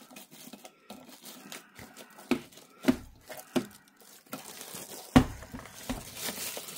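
Packaging crinkling and rustling as a cotton candy machine's parts are unpacked, with several sharp knocks of parts being handled, the loudest about five seconds in.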